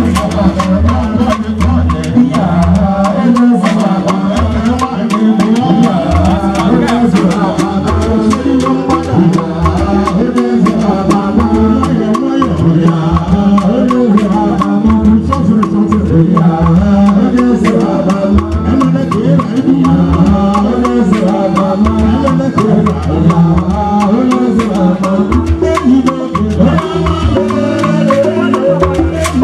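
Igbo ogene music: a steady, driving beat of percussion with drums and rattles, and a voice singing over it.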